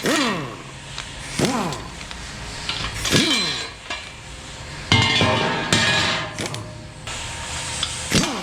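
Short bursts from a hand-held power tool, likely a cordless ratchet, working on engine fasteners. Each burst ends in a whine that falls in pitch as the motor spins down, with metal clinks between them.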